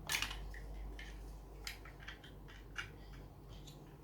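Small plastic clicks and rustles from Lego pieces being handled, with a louder scrape at the start and scattered light clicks after it.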